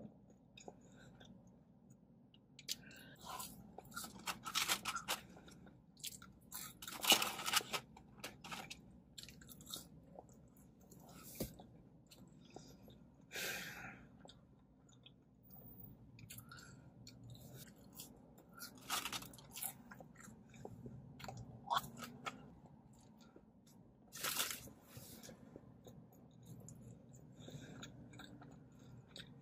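Close-up chewing of a burger with mouth sounds, broken by irregular short crunchy, crackling bursts; the loudest come about 7, 13, 19 and 24 seconds in.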